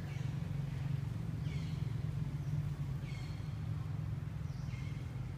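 Short, high animal calls repeating about every one and a half seconds over a steady low drone.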